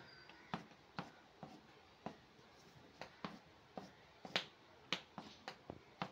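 Quick, short drawing strokes clicking on paper, irregular, about two a second, as rain streaks are drawn in black.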